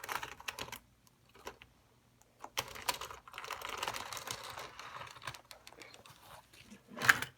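Irregular light clicking and scraping from small plastic model railroad pieces being handled on the layout, with one sharp knock near the end.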